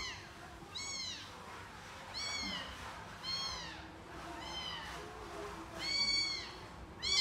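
A very young kitten mewing again and again, about once a second, each mew short and high-pitched, rising then falling.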